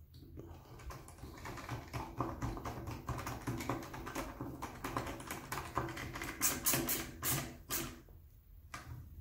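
Hand screwdriver driving the long machine screws into the housing of a HiKOKI C3606DA cordless circular saw, a dense run of small clicks and scrapes as the screws are snugged down lightly one by one. A few louder clicks come about seven seconds in, and it goes quiet just before the end.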